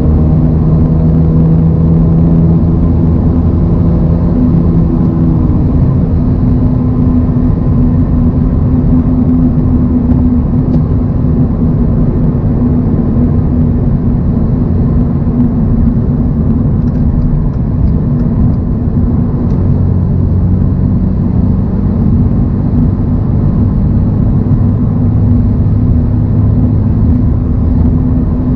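2024 Toyota GR86's 2.4-litre flat-four engine running at a steady cruise, with tyre and road noise. A few higher engine tones drop away about six seconds in.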